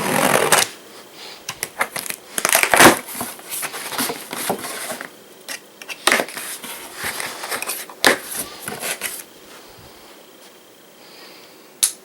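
Pocket knife cutting through packing tape on a cardboard shipping box, with irregular scraping and tearing of tape and cardboard. It is quieter in the last few seconds, with a sharp click near the end.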